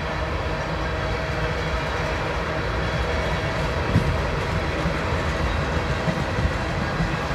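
A long string of railroad tank cars rolling past: a steady low rumble of wheels on rail, with a single sharp knock about four seconds in.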